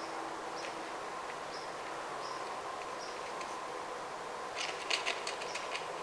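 A small bird giving sharp, high chip notes, about one every 0.7 s for the first three seconds. A quick burst of crisp clicks and rustles comes about five seconds in, over steady background hiss.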